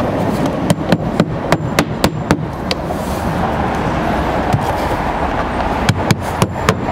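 Claw hammer driving roofing nails through an InFlow roof intake vent into the roof deck: quick sharp strikes, several a second, in two runs with a pause of about a second and a half in the middle.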